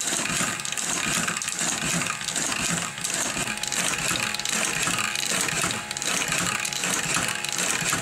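Homemade paint-can shaker driven by a car windshield wiper motor running. The crank and connecting rod slide a platform back and forth on metal drawer slides with a rhythmic metallic rattle, about two strokes a second, shaking an aerosol spray-paint can.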